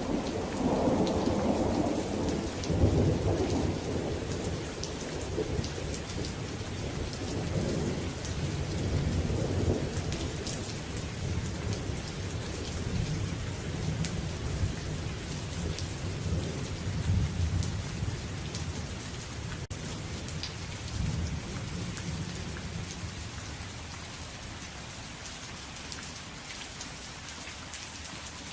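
Steady rain falling, with a long roll of thunder rumbling loudest in the first few seconds and fading out gradually over the rest of the time.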